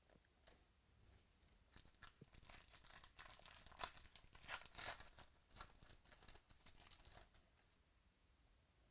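A 2018 Donruss Baseball card pack's foil wrapper being torn open and crinkled by hand. A run of sharp crackling tears starts about two seconds in and stops about seven seconds in, loudest in the middle.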